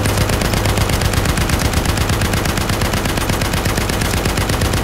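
Rapid, unbroken machine-gun fire starting abruptly, over a low steady engine drone from the propeller planes.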